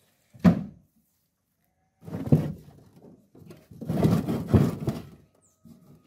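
A hard thunk as a tortoise's shell is set down on a jeep's metal rear bed, then a clatter of shells knocking and scraping against the metal floor, loudest a couple of times in the second half.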